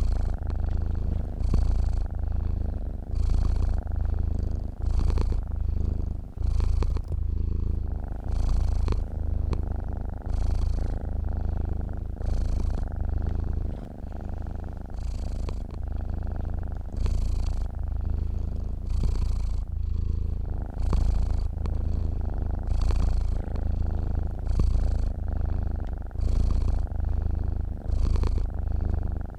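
Sleeping domestic cat purring: a continuous low, rhythmic rumble that swells and eases with each breath in and out.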